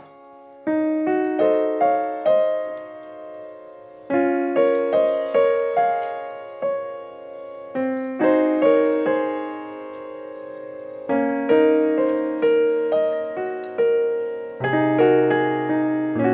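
Background piano music: a gentle melody of single notes and chords, each struck and left to ring away.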